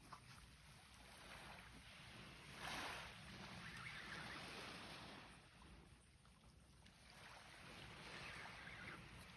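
Faint waves washing on the shore, swelling and fading in soft surges: one peaks about three seconds in and another comes near the end.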